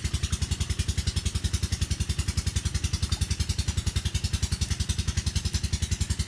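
Small boat engine running steadily, an even fast chugging of about ten beats a second.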